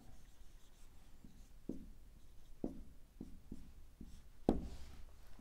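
Marker pen writing on a whiteboard: a series of faint short strokes and taps, the loudest about four and a half seconds in.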